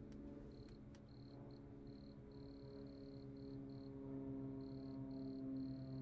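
A cricket chirping in short, high, even-pitched trills with gaps between them, over a low steady drone of several held notes that swells louder in the second half.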